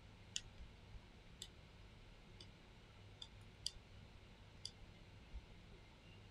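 Faint, sharp clicks of a Flipper Zero's directional-pad buttons being pressed, six or seven of them at an uneven pace of about one a second, over near-silent room tone.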